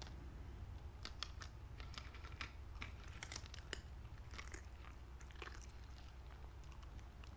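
Corgi eating crispy fried sweet potato strips: irregular crunching and crisp clicks of chewing, thickest from about one to five seconds in and sparser after.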